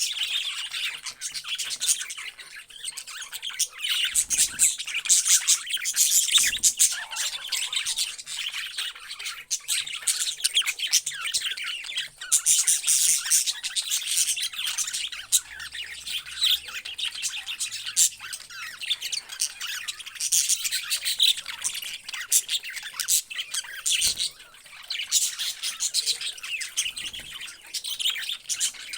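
Parrots chattering and squawking: many overlapping short, high-pitched calls without a break.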